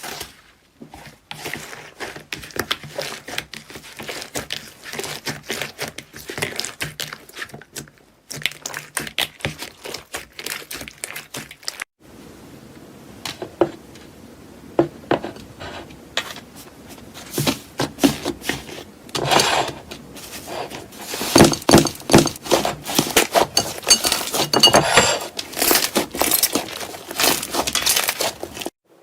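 Slime being played with by hand: dense crackling and popping, with short breaks, and louder in the second half.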